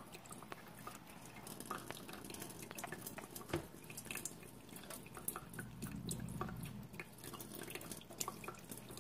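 A dog's wet mouth sounds, faint and close: a run of small, irregular clicks and smacks.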